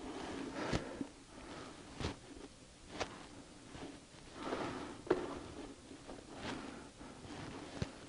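A man breathing heavily and laboured, short of breath, in soft swells every second or two, with about five sharp taps scattered through it.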